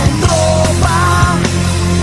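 Rock song playing, with steady bass, regular drum hits and a bending melody line, and no sung words in this stretch.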